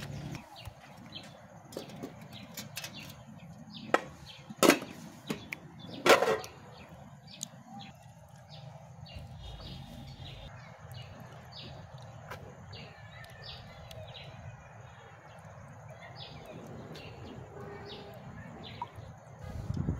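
Hands swishing rice in a metal pot of water, with small birds chirping in the background throughout. A few loud sharp knocks come between about four and six seconds in.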